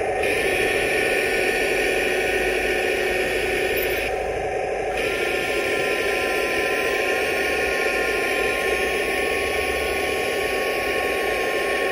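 Radio-controlled M41A3 Walker Bulldog model tank running steadily in place, with a thin high whine as its turret traverses round. The whine and the higher hiss break off for about a second around four seconds in, then carry on.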